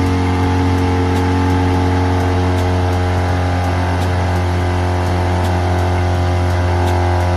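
Small electric motor running with a loud, steady hum at an unchanging pitch.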